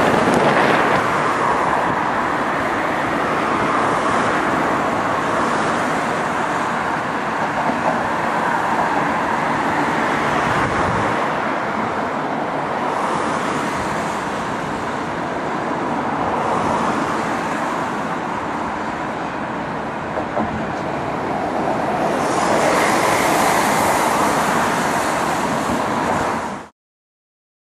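Boeing 747-8's four GEnx jet engines heard from a distance as the airliner touches down and rolls out, a steady rushing noise that swells and eases slowly. It grows louder again near the end, then cuts off abruptly.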